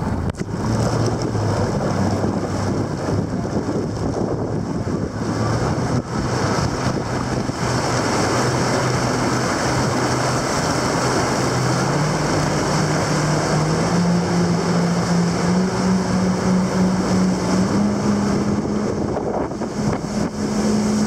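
Jet ski engine running under way, its pitch climbing steadily as it picks up speed, with wind buffeting the microphone and water rushing past the hull.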